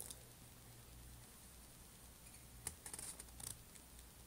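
Near silence with a low steady hum, broken about two-thirds of the way through by a few short crackles of a paper sheet being handled.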